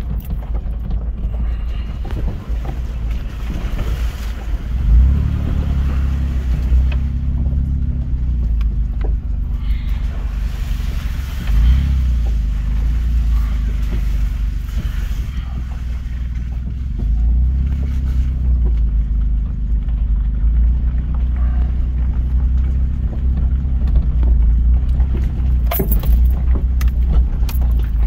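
Vehicle engine and tyre rumble heard from inside the cab while driving slowly over a rough dirt road. Knocks and jolts from bumps come through, the biggest about five seconds and twelve seconds in.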